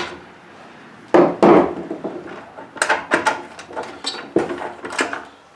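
Tools and mower parts being handled: two dull knocks about a second in, then a run of light clicks and knocks.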